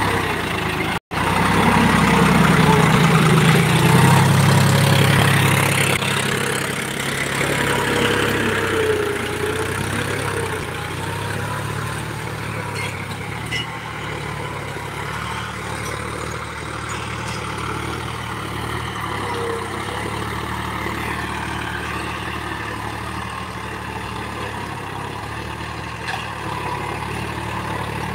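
John Deere tractor's diesel engine running steadily as it pulls a cultivator through soil. It is loudest a few seconds in, while the tractor is close, then settles to a quieter drone as it moves off across the field. There is a brief break in the sound about a second in.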